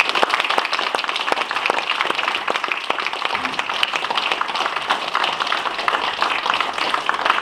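Audience applause: many people clapping at once in a steady, dense stream of hand claps.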